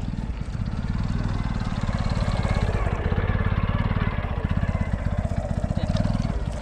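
Small motorcycle engine running at low revs close by, a fast, even putter that grows louder and then eases off near the end.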